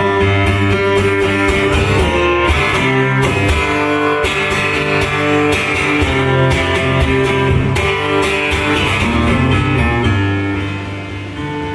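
Amplified guitar strummed and picked, chords changing every second or so, with no singing.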